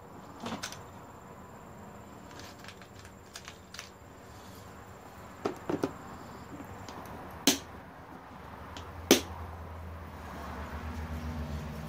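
Scattered sharp clicks and taps of hand tools and metal parts being handled, the two loudest about seven and a half and nine seconds in. A low pulsing hum starts to build near the end.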